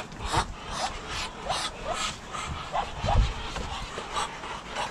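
Muscovy ducks making short rising peeps, about two a second, with breathy hissing mixed in, and a dull thump about three seconds in.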